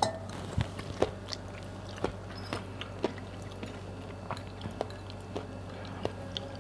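Close-up chewing and mouth sounds of someone eating, with scattered light clicks of a fork and spoon against a ceramic bowl, over a faint steady low hum.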